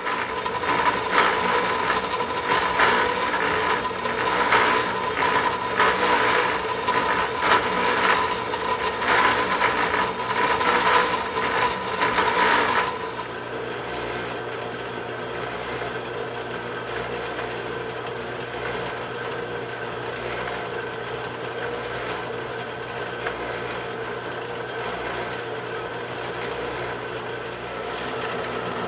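Bandsaw cutting through a thick, rusty steel plate. The cut is loud and uneven for about the first thirteen seconds, then drops to a quieter, steady running sound.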